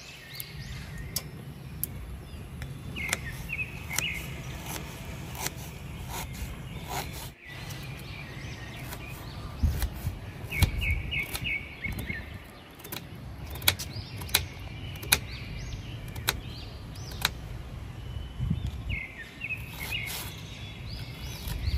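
Birds chirping in short bursts three times, over a steady low outdoor rumble, with sharp taps of a small kitchen knife on a wooden board as an onion is peeled and sliced.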